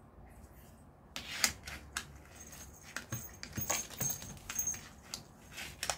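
Feather wand cat toy being flicked and tapped over a cardboard scratcher: scattered light taps and rustles, with brief high jingling notes from about halfway through.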